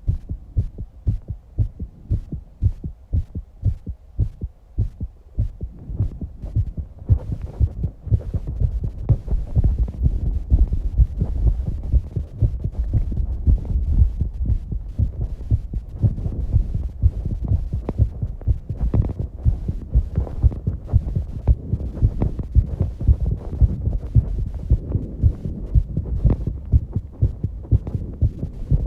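A young woman's fast heartbeat, a quick, even run of low thumps, raised after exercise. From about seven seconds in, a rushing sound of heavy breathing joins it and the whole grows louder.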